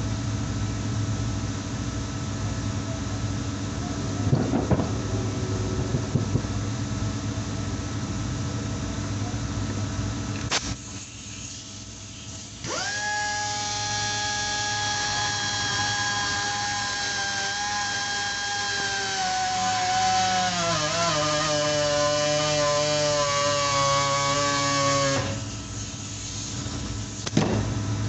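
Steady workshop machine hum with a few knocks. About halfway through, an electric power tool starts up and runs at a steady high pitch. Its pitch then drops and it runs lower for a few seconds before stopping.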